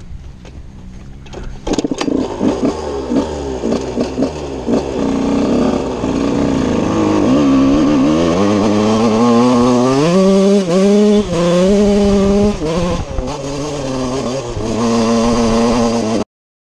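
TM 125 two-stroke motocross engine, a single-cylinder 125, running under the rider. It is quiet and knocking at first, then a sharp knock about two seconds in, then repeated revving that rises and falls in pitch. The sound cuts off suddenly near the end.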